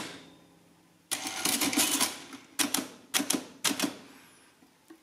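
Facit CA1-13 electromechanical calculator: about a second of its motor-driven mechanism running through a cycle, then a handful of separate sharp clicks as number keys are pressed.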